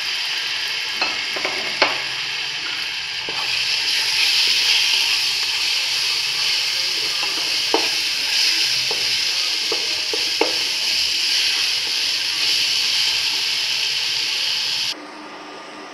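Crushed tomato sizzling as it fries in hot oil with an onion and spice masala in a nonstick pan, stirred with a wooden spatula that scrapes and taps lightly on the pan a few times. The sizzle grows louder a few seconds in and cuts off suddenly near the end.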